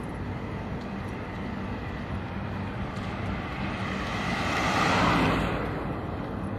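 A car passing on the wet road, its tyre hiss swelling to a peak about five seconds in and fading, over a steady rumble of city traffic.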